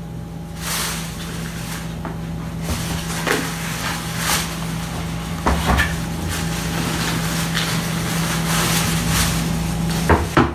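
A few light knocks and taps over a steady low hum.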